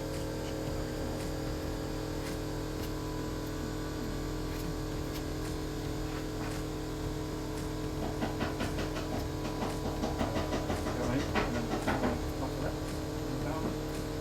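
A steady electrical hum throughout. From about eight seconds in, a quick run of short scraping strokes as a spreader skims body filler across a car panel.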